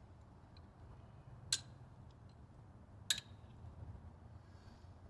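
Two sharp metallic clicks about a second and a half apart, with a few fainter ticks between: tools and small metal parts being handled while working on a spark plug.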